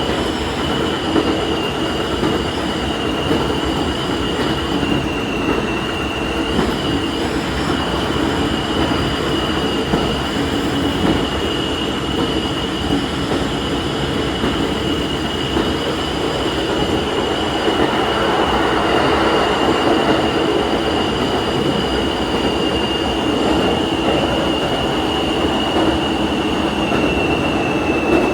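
Diesel railcar running along the track, heard from inside at the front: a steady engine and running-gear rumble with a constant high whine on top, swelling a little about two-thirds of the way through.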